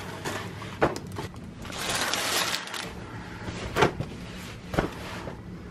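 Rustling and crinkling of a metallic bubble mailer and its contents being handled, with a longer rustle about two seconds in and a few sharp light taps.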